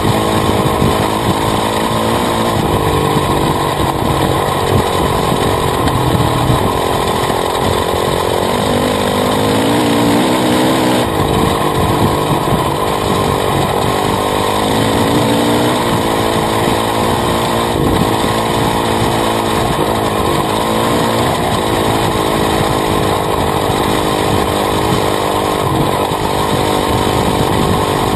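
Honda CRF450R dirt bike's single-cylinder four-stroke engine revving up and down as it is ridden. Heard close up from the swingarm, over a steady rush of wind and tyre noise.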